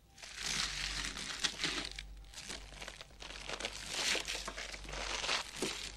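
Kitchen knife slicing and chopping crisp vegetables on a cutting board: a run of irregular crunching, crackling cuts.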